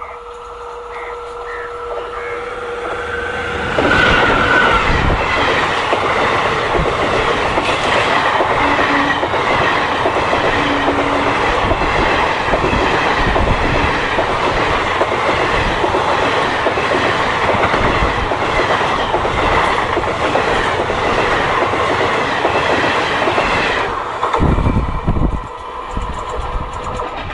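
Express passenger train hauled by a WCAM2P electric locomotive passing at speed close by. A steady tone grows as it nears, then the locomotive and coaches rush past about four seconds in with a rapid clickety-clack of wheels over rail joints for some twenty seconds. The noise drops suddenly as the last coach goes by and the train recedes.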